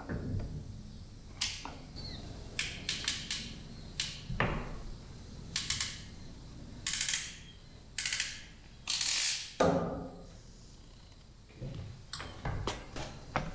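Hand tools working on the water heater's pipe fittings: a series of short clicks and scraping rasps, with a quick run of clicks about three seconds in and a longer rasp near nine seconds.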